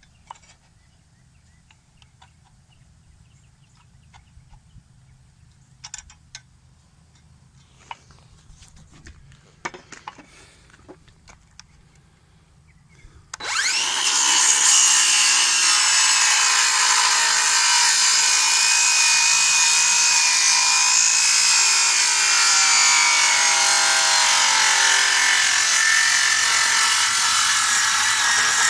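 Light handling clicks and knocks. About 13 seconds in, a Craftsman V20 cordless 6.5-inch circular saw starts up with a sudden jump in level and cuts steadily through a damp pine 2x10 at a 45-degree bevel.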